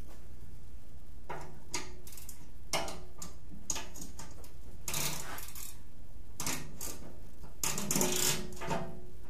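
Irregular metallic clinks and knocks, some ringing briefly, as parts and hardware are handled on a combat robot's metal armour plating during its tear-down; they come every second or so, bunching into a louder flurry near the end.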